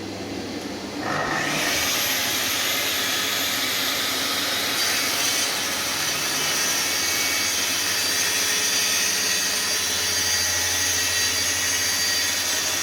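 Festool TS 55 plunge track saw cutting right through a sheet of cabinet board along its guide rail. The loud, steady sawing comes in about a second in and holds to the end.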